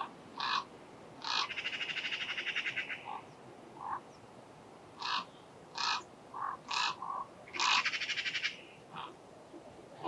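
Common ravens calling: a string of short calls, and twice a fast, even rattling call lasting about a second or more.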